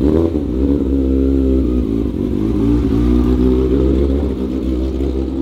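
Kawasaki ZX-6R 636 inline-four engine running at low revs, with a short rev right at the start and an uneven, wavering note as the bike pulls away. It is misfiring on two cylinders, because the spark plug leads went back in the wrong order after a quick shifter install, and it sounds like a Ninja 250.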